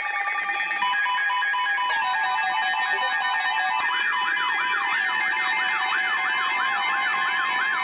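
Several electronic alert tones sounding together: steady tones and pulsed beeps, joined about four seconds in by a fast siren-like warble that sweeps up and down three or four times a second.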